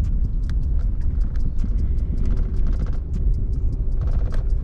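The turbocharged 5.4-litre two-valve V8 of a 2003 Ford F-150 running steadily, heard from inside the cab as a low rumble with irregular sharp clicks throughout.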